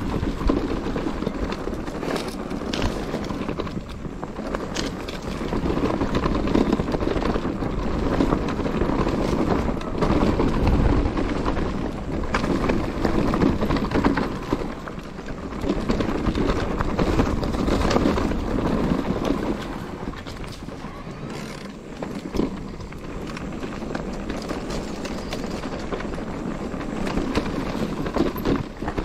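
Enduro mountain bike ridden over a rough trail: tyres running over dirt and stones, with the bike rattling and knocking irregularly as it goes.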